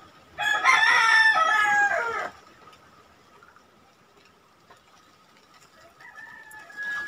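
A rooster crowing once, loud and about two seconds long, starting just after the start. A fainter, high, drawn-out call follows near the end.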